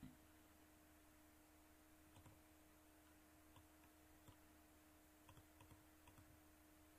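Near silence: a faint steady hum with a few soft computer mouse clicks scattered through it.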